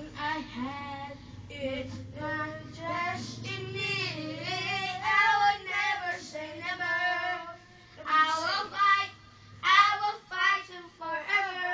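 A boy singing into a handheld microphone, phrase after phrase, with short breaks between phrases about eight and nine and a half seconds in.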